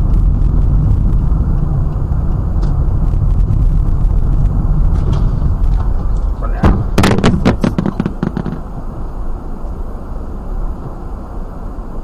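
Steady low road and engine rumble heard from inside a car, broken about six and a half seconds in by a two-second cluster of sharp bangs and cracks: a car collision. Afterwards the rumble is quieter.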